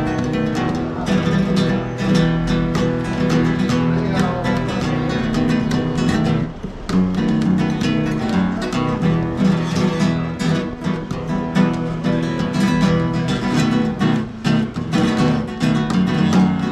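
Flamenco guitar being played: quick strummed chords with many sharp strokes, pausing briefly about seven seconds in.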